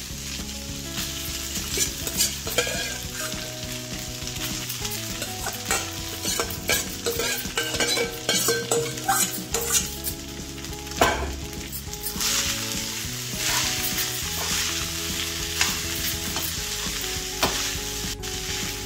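Cooked rice being stir-fried with a crackling tempering of mustard seeds, dals, chillies and nuts in hot oil in a nonstick kadai. A metal slotted spoon scrapes and tosses it again and again over a steady sizzle.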